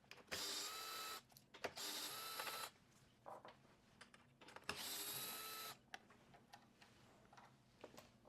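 Small cordless electric driver with a 5 mm hex bit running in three short bursts of about a second each, backing out the screws that hold the screen assembly on, with light clicks of handling in between.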